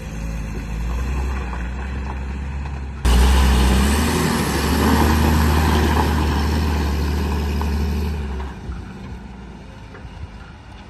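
Tata 10-wheeler truck's diesel engine running as the loaded truck drives close past, suddenly louder about three seconds in with a brief rise in engine pitch, then fading as it drives away near the end.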